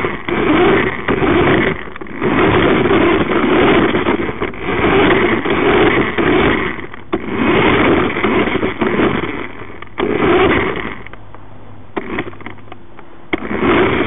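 Toy remote-control car's electric motor and gearbox, heard from a camera mounted on the car, driving in bursts of a second or two with short pauses between them. The motor drops away for about two seconds near the end, then starts up again.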